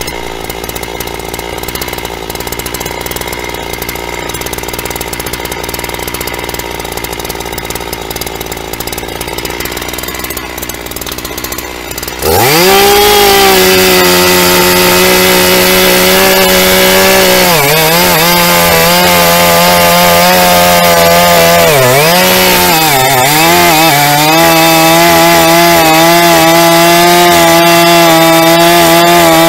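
Shindaiwa E1045S two-stroke chainsaw idling, then opened to full throttle about twelve seconds in and cutting through a log. The high engine note holds steady under load, sagging briefly in pitch a few times as the chain bites.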